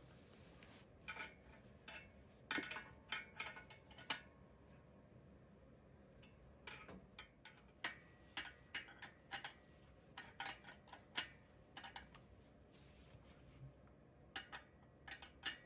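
Scattered light metallic clinks and knocks, coming in clusters, from steel parts and tools being handled while assembling and levelling the feet of a crown guard stand.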